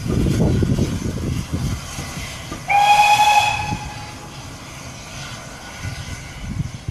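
A departing steam train rumbles low, then about three seconds in a steam locomotive whistle sounds once, loud and steady for about a second, before fading.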